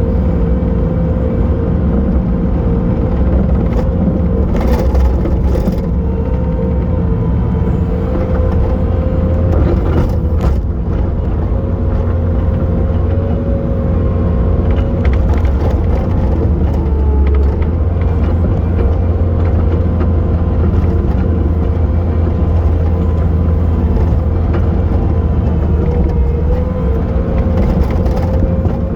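Bobcat T870 compact track loader's diesel engine running steadily under load, with a steady whine over the low drone. A few sharp knocks a few seconds in and again about ten seconds in.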